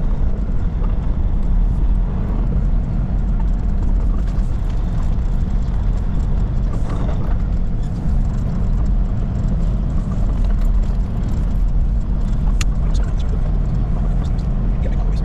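Semi truck's engine running steadily, a low rumble with a few faint clicks and knocks over it.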